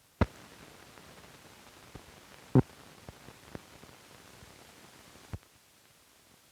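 Hiss and crackle of a 16mm film print's optical soundtrack: a sharp pop about a quarter second in, a louder pop at two and a half seconds, a few fainter clicks between them, and a last pop a little past five seconds, after which the hiss drops.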